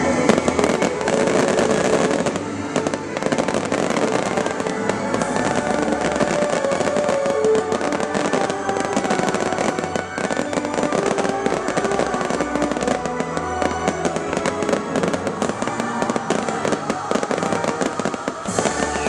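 Fireworks display: many shells bursting in rapid succession, with music playing underneath.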